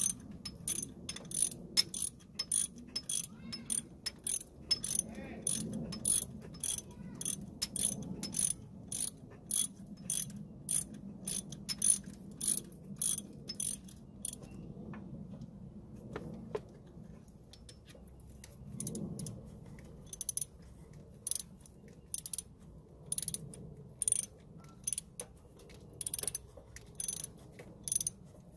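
Hand ratchet wrench clicking as a bolt is run in, in regular back-and-forth strokes about two a second. The strokes pause for a few seconds in the middle, then start again.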